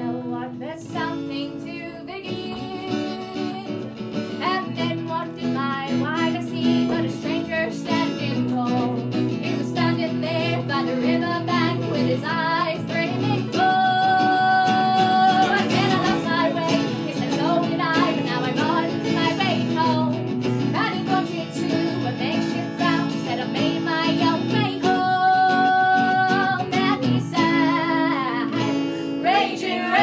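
Live folk band playing a song: strummed acoustic guitars with other guitars, and women's voices singing. The music builds in loudness over the first few seconds.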